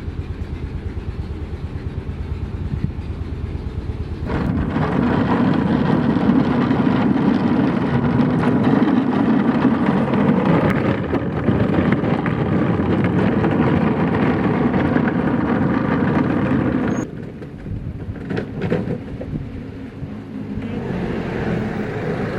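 A vehicle engine running. It gets abruptly louder about four seconds in, drops suddenly near the end with a few clicks, then rises again.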